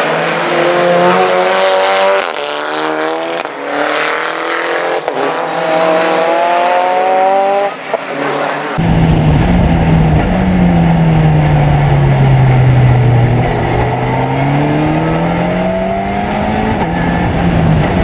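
SEAT León touring race car accelerating hard and shifting up through the gears: the engine pitch climbs, then drops back at each upshift. About nine seconds in it changes to onboard sound from an open-cockpit race car. Its engine pitch sinks as it slows, then climbs again as it accelerates, under heavy wind rumble on the microphone.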